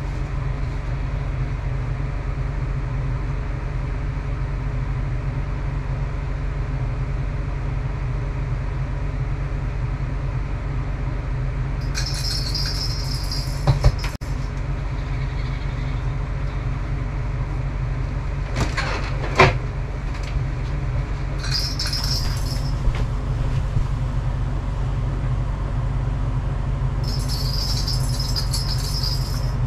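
A steady low mechanical hum runs throughout. Three short high hissing bursts come about twelve, twenty-one and twenty-seven seconds in, and a few sharp knocks near fourteen and nineteen seconds.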